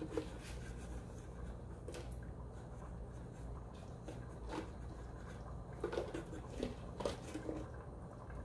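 Soft plops and handling sounds as whole green chillies are dropped by hand into a pot of simmering rice and beef in milky stock, a few at a time, about two seconds in and again around six to seven and a half seconds, over a steady low hum.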